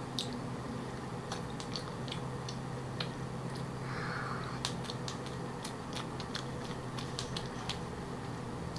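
Close-up eating sounds of a soft cream-and-kiwi-filled crepe cake: scattered small wet mouth clicks and smacks while chewing, with a soft bite about four seconds in.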